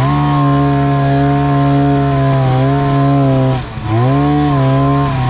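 Snowmobile engine revved hard and held high while the machine is stuck in snow, easing off briefly a little over three and a half seconds in and then revving back up.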